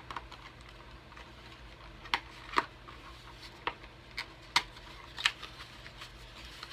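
Cosmetic packaging being handled by hand: about a dozen irregular, sharp clicks and taps as a skincare product's tube and packaging are turned over. A faint low hum runs underneath.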